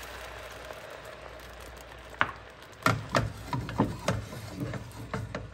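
Sauce sizzling softly in a hot frying pan, then, from about two seconds in, a run of sharp knocks and clatters as the pan is shifted and shaken on the metal grate of a gas stove.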